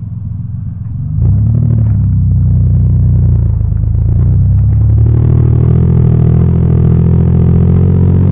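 Vehicle engine running, picking up revs and getting louder about a second in, then pulling along steadily.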